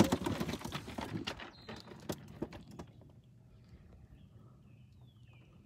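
A rapid, uneven run of knocks and clicks for about three seconds, then a few faint, short falling bird chirps.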